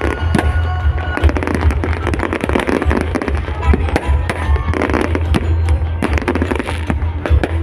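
Fireworks going off in quick succession, many sharp bangs and crackles, over loud music with a heavy bass.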